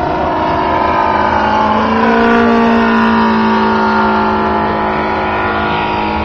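Robart R780 seven-cylinder radial engine of a scale RC Fairchild PT-23 running in flight, a steady droning note that swells and rises slightly in pitch about two seconds in, then holds.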